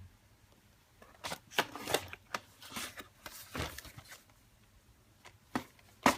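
Packaging being handled: a run of rustling and crinkling for about three seconds, then two sharp clicks near the end.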